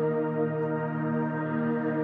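Background music: slow ambient music of sustained, overlapping held tones.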